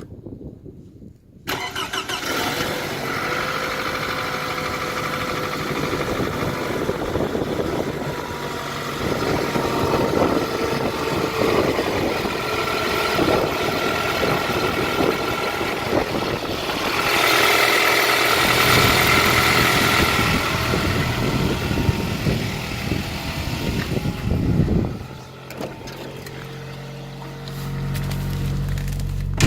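Third-generation Toyota RAV4 engine cold-started at −15 °C: it catches suddenly about a second and a half in and runs with a dense clattering rattle, louder for a few seconds in the middle. About 25 s in it settles to a quieter, steadier idle. The rattle is an extraneous noise on the cold start, not the engine's normal sound.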